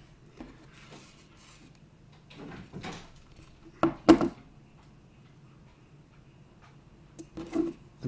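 Hand crimping tool for Dupont pins handled on a desk: faint rustling, then two sharp clacks in quick succession about four seconds in.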